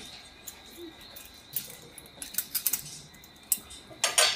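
Light clicks and scrapes of plates and utensils being handled, with a louder clatter of tableware near the end.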